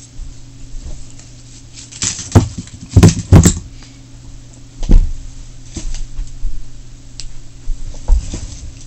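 Several loud knocks and thumps, clustered a few seconds in, over a steady low hum in a small room.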